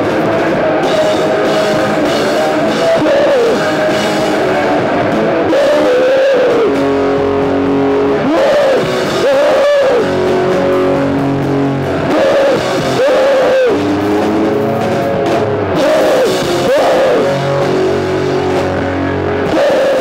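A live rock band playing loud, with electric guitars and a drum kit, heard from within the room.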